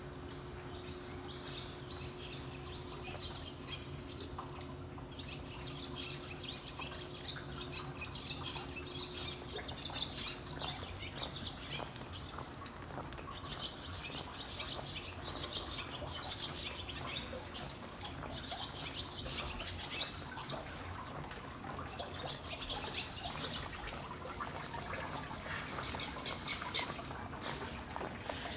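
Small birds chirping and twittering in repeated quick bouts, loudest near the end, over a faint steady hum that stops about a third of the way in.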